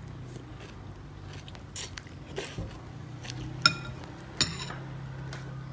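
A baby monkey biting and chewing pieces of fruit, with a few sharp clicks, the two loudest in the second half, over a steady low hum.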